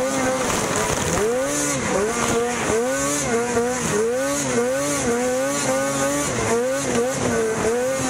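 Lynx RS snocross racing snowmobile's two-stroke engine at full race pace, its revs rising and falling more than once a second as the throttle is worked over the bumps of the track, over a high hiss.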